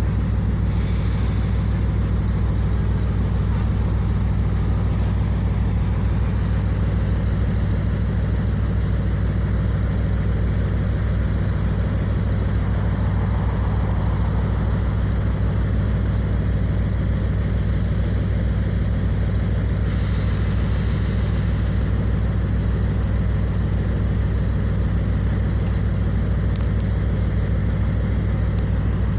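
Diesel train standing at the platform with its diesel engines idling: a steady deep hum that holds unchanged.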